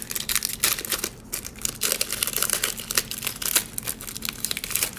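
Wrapper of a trading-card pack crinkling and tearing as it is pulled open by hand: a continuous run of quick, sharp crackles.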